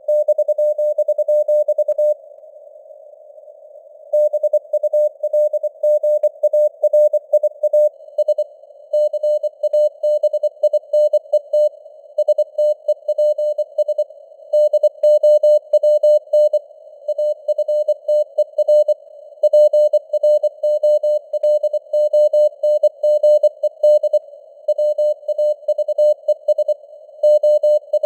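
Morse code (CW) sent at 24 words per minute: a single mid-pitched beep tone keyed in rapid dots and dashes, spelling out news headlines, over a narrow band of simulated radio hiss with varying signal strength. About two seconds in, the keying pauses for roughly two seconds before resuming.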